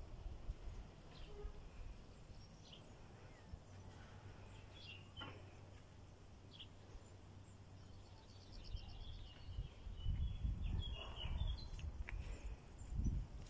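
Outdoor ambience with scattered short bird chirps and a brief rapid trill, and low rumbles on the microphone in the last few seconds.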